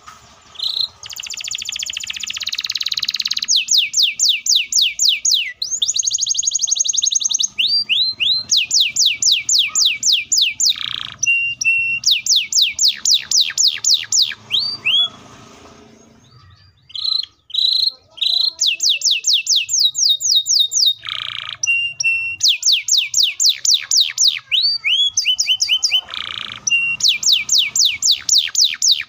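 Canary singing in full song: long rapid trills of repeated high, down-sweeping notes, about six a second, in phrases broken by short pauses and a few harsh buzzy notes, with a longer lull about halfway through.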